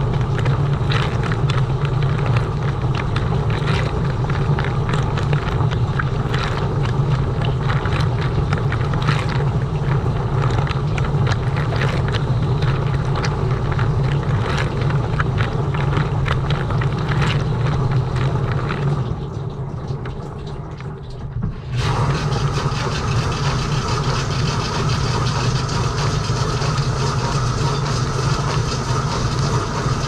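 Frigidaire Gallery dishwasher in its wash cycle, heard from inside the tub: a steady low pump hum under water spraying from the spray arms and splashing against the racks and dishes. About two-thirds of the way through, the spray noise drops away for a couple of seconds, leaving a duller hum, then comes back full.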